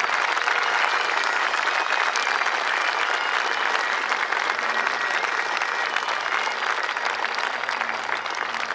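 A large crowd applauding, many hands clapping steadily.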